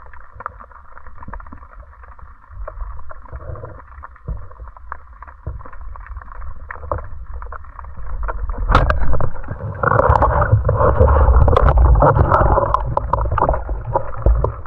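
Muffled underwater water noise heard through a diver's camera housing, with scattered clicks; about nine seconds in a sharp knock, then a much louder churning of water.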